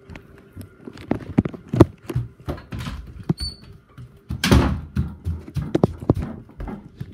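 Footsteps, bumps and a door being handled, with many scattered knocks, a short high squeak a little over three seconds in, and a louder rustling whoosh about four and a half seconds in.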